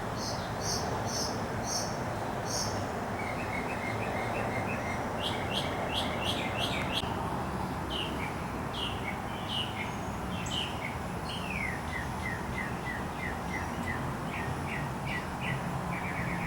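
Several songbirds singing and chirping, with runs of short, high notes, quick trills and falling whistles, over a steady background noise.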